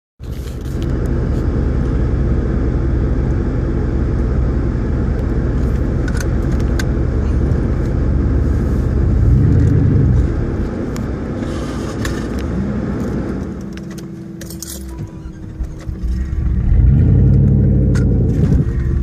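Jeep engines running on a snowy hill climb, revving up and down in several swells. The loudest swells come about halfway through and near the end, with light rattling and clinking over the top.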